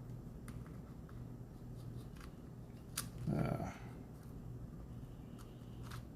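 Faint clicks and taps of a laptop RAM module being handled and slid into its slot, with a short low voice sound about halfway through.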